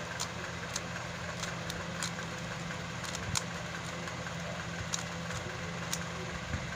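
A 3x3 Rubik's cube's layers being turned by hand, making short irregular clicks about once or twice a second, over a steady low hum.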